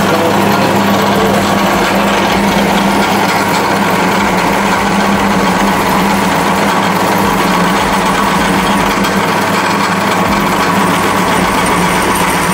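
Electric drill running steadily with a constant motor hum and hiss, boring a hole in a piece of square steel stock.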